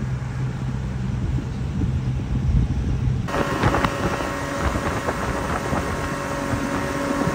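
Boat engine running at low speed, a steady low hum. A little over three seconds in the sound changes abruptly to the boat under way: a higher engine drone with wind and water rush.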